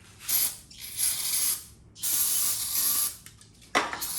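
Aerosol can of carburetor cleaner sprayed in short hissing bursts, about four of them, the longest lasting about a second.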